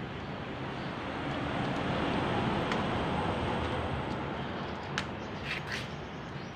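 Outdoor background noise that swells to a peak about halfway through and eases off again, with a few sharp clicks near the end.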